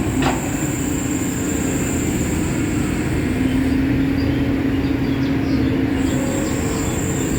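Steady vehicle engine and road noise with a constant low hum, and a brief falling sound just after the start.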